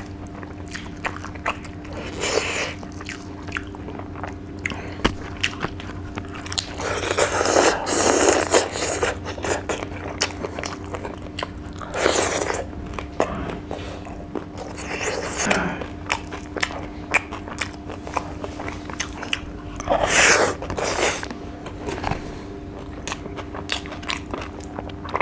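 Close-up eating sounds of dry fish and rice: wet chewing and biting with many small mouth clicks, swelling into louder bouts of chewing four times or so. A faint steady hum runs underneath.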